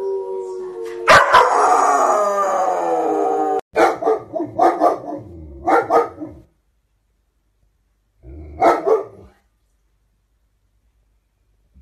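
German shepherd puppy howling: a held note, then a long howl that slowly falls in pitch. An adult German shepherd then gives a run of short barks, and two more about three-quarters of the way through.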